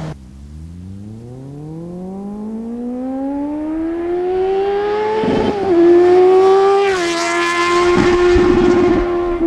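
Kawasaki Z750's inline-four engine through a G&G Moto2 exhaust with the dB-killer removed, accelerating hard: the revs climb steadily for about five seconds, break briefly with a small drop in pitch as it shifts up, then hold high while getting louder as the bike approaches.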